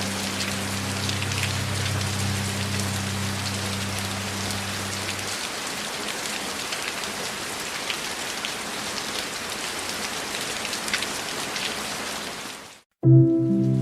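Steady rain with individual drops pattering, under a low steady drone that stops about five seconds in. The rain fades out near the end, a brief silence follows, and music begins.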